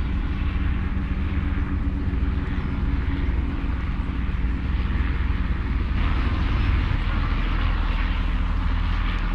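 Jet noise from the Avro Vulcan's four Rolls-Royce Olympus turbojets as the delta-wing bomber flies overhead: a continuous deep rumble with steady low droning tones underneath. A rushing roar swells about six seconds in.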